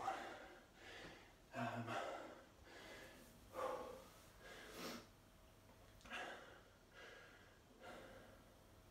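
A man breathing hard and catching his breath after strenuous bodyweight exercise, a heavy breath in or out about every second.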